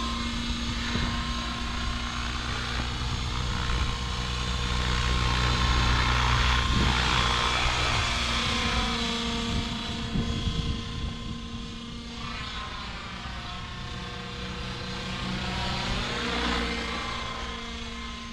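Align T-Rex 650X electric RC helicopter in flight: a steady rotor and motor whine that swells louder about six seconds in and again near the end as it moves about.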